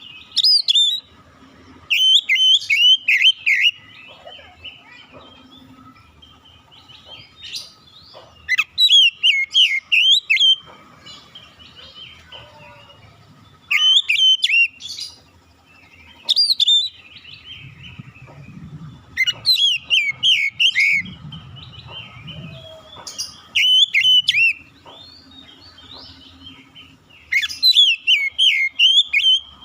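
Oriental magpie-robin (kacer) singing: loud phrases of quick, rising and falling whistled notes, each a second or two long, repeated every three to five seconds, with softer chirps in between.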